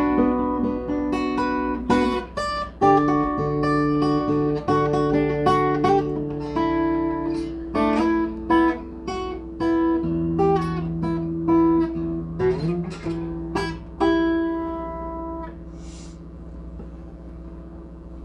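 Guitar being played: picked notes and chords ring over one another, and the last chord dies away about three-quarters of the way through, over a steady low hum.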